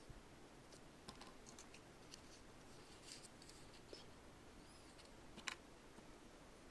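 Faint, scattered clicks and taps of small plastic toy pieces being handled, with the sharpest click about five and a half seconds in.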